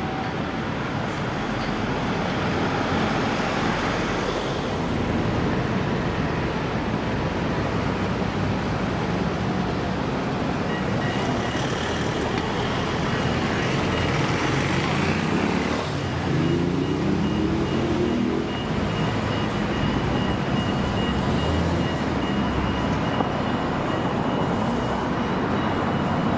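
Busy city street ambience with steady road traffic noise. About halfway through, a vehicle engine rises in pitch as it speeds up.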